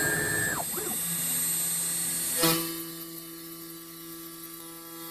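CNC router running its slot-cutting program on a UHMW plate: a motor whine rises in pitch, holds briefly and falls away as the machine moves, then a sharp click about two and a half seconds in, followed by a steady hum.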